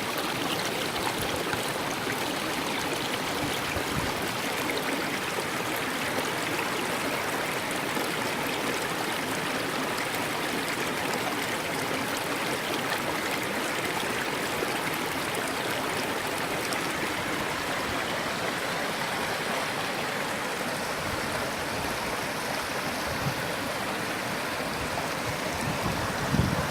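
A forest stream running over rocks: a steady rush and babble of flowing water.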